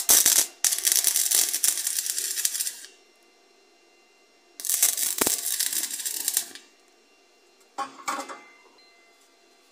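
Stick (arc) welder's arc crackling and sputtering in separate bursts as tack welds are laid on steel tube: a brief strike at the start, two runs of about two seconds each, and a short burst near the end.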